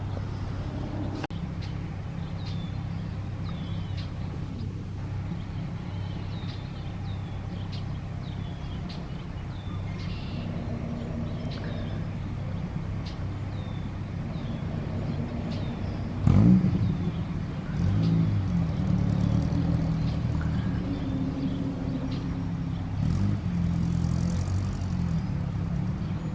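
A steady low engine hum, as of a vehicle running nearby, with short high bird chirps repeating over it. The engine sound surges louder about two-thirds of the way through and stays a little louder afterwards.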